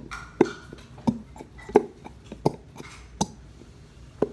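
Upturned plastic glue bottle being smacked repeatedly to shake the last glue out: a series of sharp taps, about one every two-thirds of a second.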